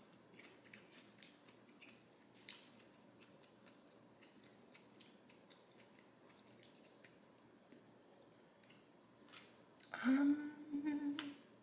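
Quiet chewing with a few faint clicks of a fork against a plastic takeout container. About ten seconds in, a held hum of 'mmm' lasting over a second.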